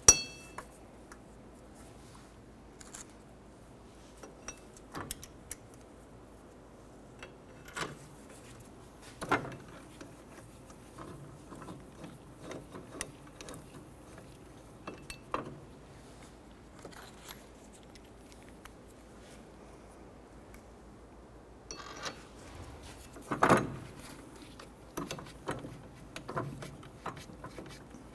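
Scattered metallic clicks and clinks of steel hub bolts being handled and threaded by hand into the knuckle behind the rear wheel hub, with a sharp click right at the start and a louder knock late on.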